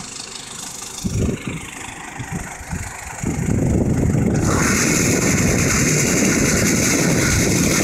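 Belarus 820 tractor's diesel engine running while its mounted bale wrapper works. Uneven low rumbles come through for the first three seconds, then the sound turns louder and steady about three seconds in.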